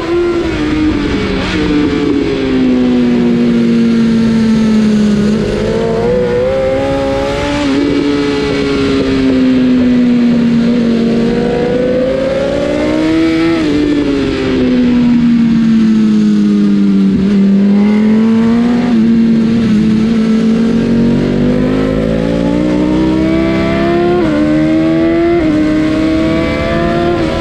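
BMW S1000 RR's inline-four engine at racing speed. Its note climbs and falls repeatedly, with sudden steps in pitch at the gear changes and one long fall in pitch about halfway through.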